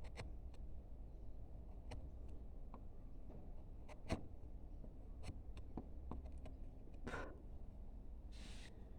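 Hand carving gouge (a 5/20) cutting into wood: faint, irregular light ticks and clicks as the edge bites and chips come away, with a couple of short shaving scrapes near the end.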